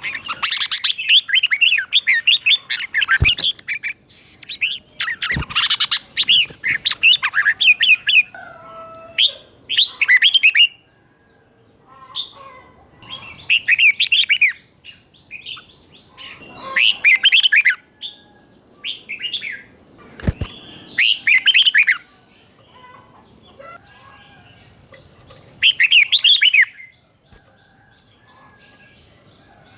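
Red-whiskered bulbul singing quick, bubbly warbled phrases. The song runs densely for the first several seconds, then comes in short bouts a few seconds apart, with a few sharp knocks in between.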